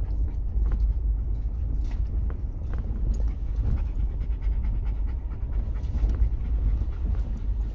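A dog panting steadily inside a moving off-road vehicle's cabin, over the vehicle's low rumble on a rough dirt trail, with frequent small knocks and rattles from the bumps.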